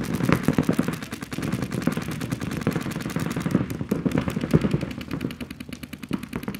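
Paintball markers firing rapid, continuous strings of shots, roughly ten or more a second, with a brief let-up about a second in.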